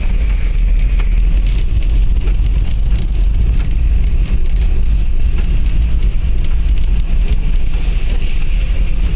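Suzuki kei truck driving along a rough dirt track, heard from inside the cab: a steady, loud rumble of the engine and the tyres on the uneven surface, with a few light knocks and rattles.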